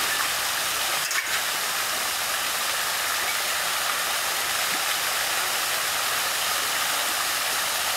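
Splash-pad fountain jets spraying and splashing down onto the shallow wet pad, a steady hiss of water with a brief break about a second in.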